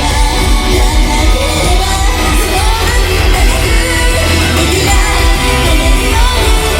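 Live J-pop idol group performance: members singing over a loud rock-style backing track with a heavy, steady bass, echoing in a large hall.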